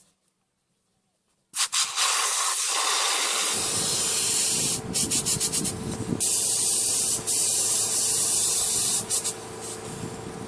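Loud rushing hiss of air from a pump inflating a giant inflatable pool float, with a steady motor hum under it. It breaks off briefly a few times, then runs quieter near the end.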